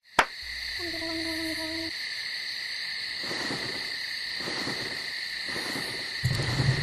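Cartoon night ambience: an owl hoots once, long and low, over a steady high insect-like drone, with fainter hoots after it. A sharp click opens it, and a low rumble comes in near the end.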